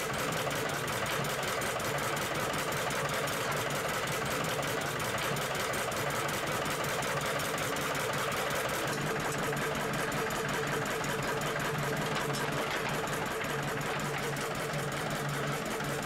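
Stationary engine with a large flywheel running steadily with a rapid, even beat, powering palm-fruit processing machinery.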